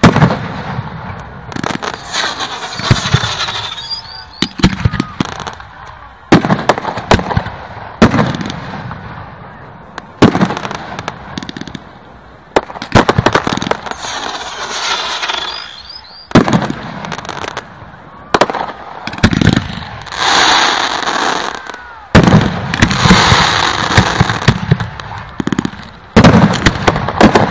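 Fireworks display shells bursting: a run of sharp bangs, with several spells of dense crackling from crackle-effect shells, recorded through a phone's microphone.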